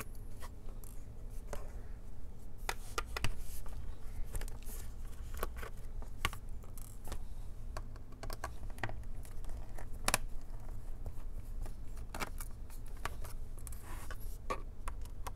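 Light, irregular clicks and scrapes of a small Phillips screwdriver working out the screws that hold the LCD panel in a laptop's display lid.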